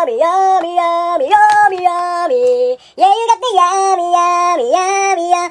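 A high-pitched voice singing a tune without words, holding notes and stepping between them, with a short break about three seconds in.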